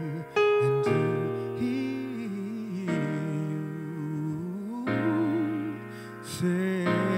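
A man singing a slow solo with piano accompaniment, holding long notes with vibrato and sliding between pitches.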